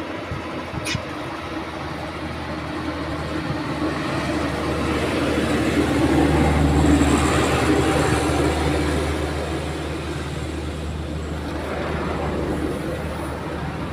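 A large road vehicle passing, its engine rumble swelling to a peak about seven seconds in and then easing off. A brief high squeak sounds about a second in.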